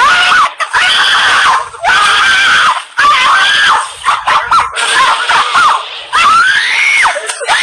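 Loud screaming from a meme sound effect: about seven high-pitched screams one after another, each under a second, some held and some bending up and down, the longest one rising then dropping near the end.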